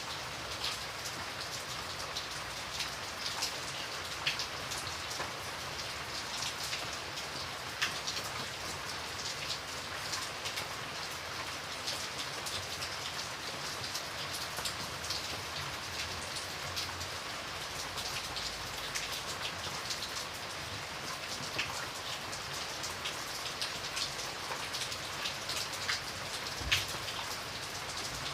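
Steady rain falling, an even patter with individual drops clicking and tapping on a surface; one louder drop lands near the end.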